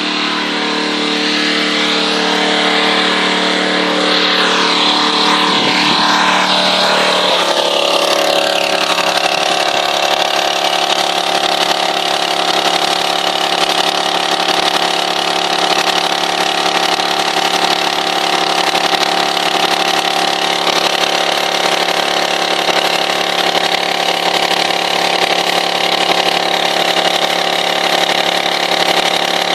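Gas pressure washer's engine running steadily, with the hiss of the spray over it; its note changes about seven seconds in, then holds steady.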